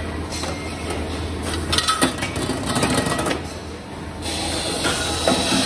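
Metal-working machinery running with a steady low hum and irregular metallic clattering and knocks, busiest about two to three seconds in.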